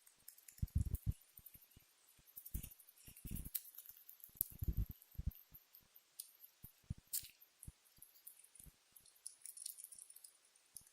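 Pet rat bruxing, grinding and chattering its teeth in quick, irregular faint clicks, with a few soft low thumps in the first half.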